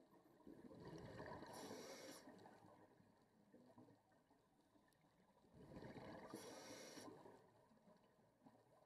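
Scuba diver's exhaled breath bubbling out of the regulator underwater, two breaths about five seconds apart, each a gurgling rush of bubbles that fades away.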